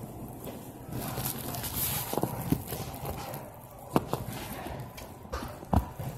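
Supermarket ambience: a steady background hiss with about six short, sharp clicks and knocks scattered through it, the strongest about four seconds in and again near the end.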